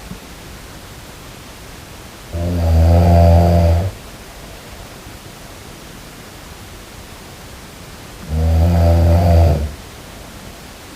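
A person snoring: two slow, low-pitched snores of about a second and a half each, some six seconds apart, over a steady hiss.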